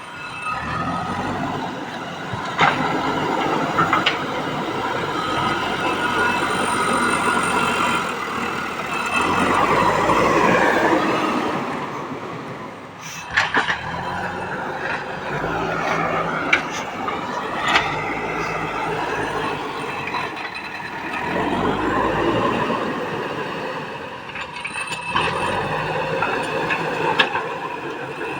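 JCB 3DX backhoe loader's diesel engine running and working, its revs swelling twice under load, with several sharp knocks scattered through.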